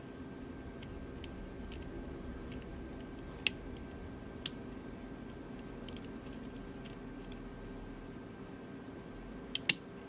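Faint, scattered small clicks of a hook pick working the pins of an Abus E90N brass euro cylinder under tension, with a sharper click about three and a half seconds in and two close together near the end.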